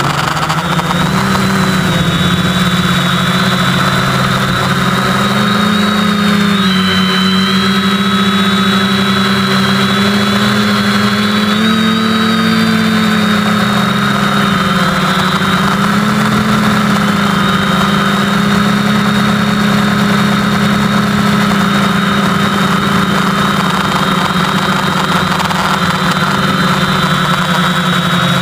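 SK450 dead-cat quadcopter in flight, its brushless motors and propellers giving a steady hum with a high whine, heard close up from the onboard camera. The pitch dips and rises a few times with throttle changes, most noticeably about a quarter and halfway through.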